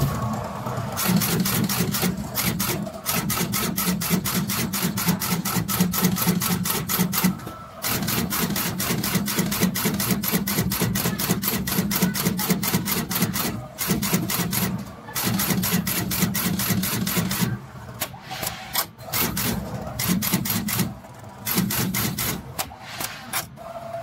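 Automatic through-hole component insertion machine at work: rapid, regular clacking of its insertion head and chain feeder as it drives leaded parts into a circuit board, several strokes a second, broken by short pauses every few seconds.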